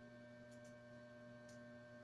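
Near silence: a steady electrical hum, with a few faint light ticks as dry wicker strands are handled and woven.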